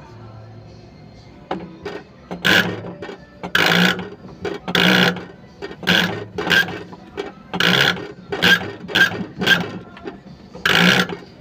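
A series of about a dozen short, loud hissing bursts at irregular intervals, each under a second long, over a faint steady hum.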